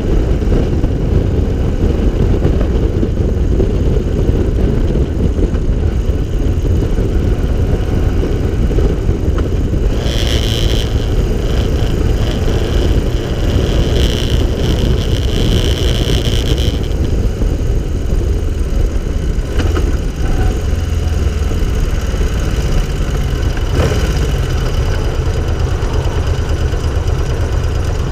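Onboard sound of an open three-wheeled cyclecar being driven: the engine runs steadily under a dense rumble of wind on the microphone. A higher hiss joins for about six seconds partway through, and the sound eases in the last few seconds as the car slows toward a junction.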